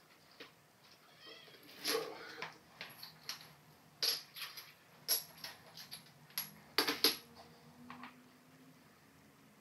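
Sharp clicks and knocks of ceramic tile pieces and tools being handled, about a dozen spread over several seconds. A brief wavering high-pitched squeal comes just before the first loud click.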